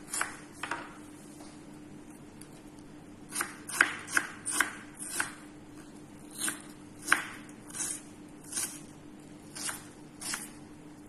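Kitchen knife chopping red onions on a wooden cutting board: about a dozen short, irregular knocks of the blade striking through onion onto the board, with a pause of a couple of seconds near the start. A faint steady hum sits underneath.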